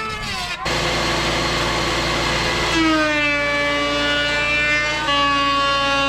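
Electric woodworking power tool working wood. A loud rushing noise of cutting starts about half a second in. From about three seconds a steady, high-pitched motor whine dominates and shifts slightly in pitch near the five-second mark.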